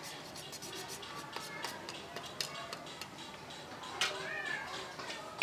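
Quick rasping strokes of a hand file worked against a tube, with a cat meowing once about four seconds in.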